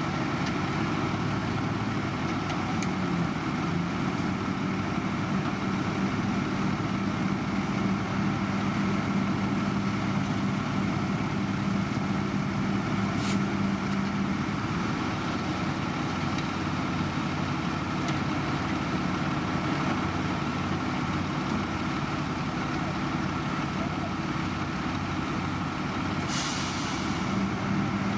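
Heavy diesel engine of road construction machinery running steadily. There is a single click about halfway through and a short hiss of air near the end.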